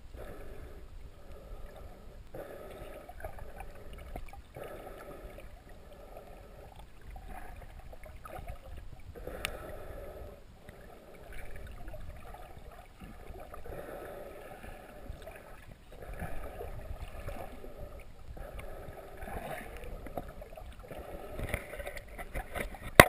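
Muffled underwater water noise: water sloshing and gurgling around a submerged camera, with a low rumble and soft swells every second or two, growing louder near the end.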